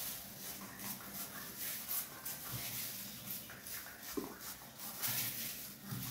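Hand-pump trigger spray bottle spritzing water onto hair in quick repeated squirts, a few short hisses each second.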